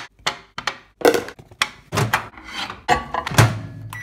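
Dishes and a plastic food container knocked and set down on a stone kitchen counter: a run of short thunks and clacks, about seven in the span.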